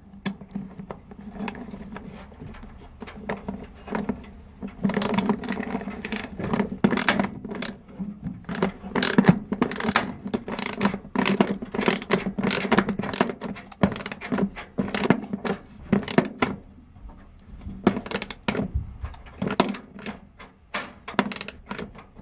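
Ratchet wrench with a 13 mm socket clicking in repeated strokes as the nut on a toolbox J-hook bolt is tightened down, in runs of rapid clicks with short breaks between them.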